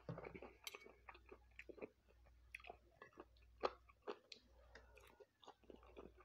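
A person chewing food, with faint, irregular wet mouth clicks and smacks.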